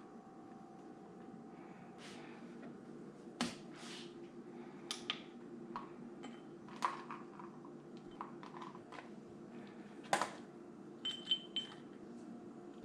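Quiet kitchen handling: a few scattered light clicks and knocks of containers and utensils being moved and set down on the counter, over a low steady hum.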